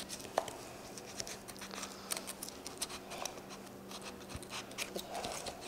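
Butcher's knife cutting and scraping along pork loin rib bones: scattered faint scratches and clicks over a steady low hum.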